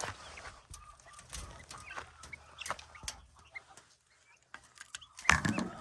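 Chickens clucking in short scattered calls, with a louder, sharper burst of sound near the end.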